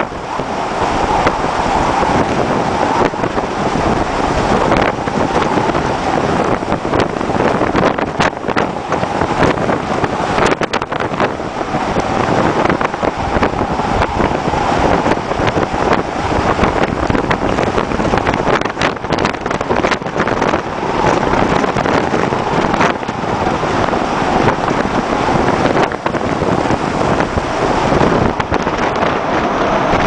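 Storm-force wind and waves breaking over a ship's deck: a loud, steady rushing roar, with gusts buffeting the microphone now and then.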